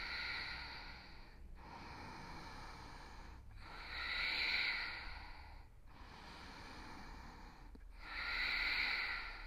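A woman's slow, audible breathing in and out, each breath about two seconds long, with a stronger breath about every four seconds.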